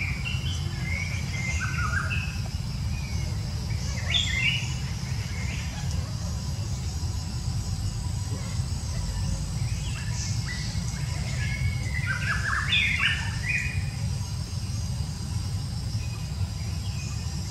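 Birds chirping in scattered short bursts over a steady low rumble.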